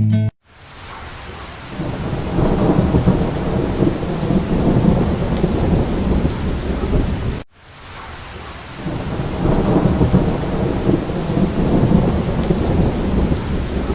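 Steady rain with rolling thunder. The low rumble swells up about two seconds in, cuts off abruptly about halfway through, then builds again the same way.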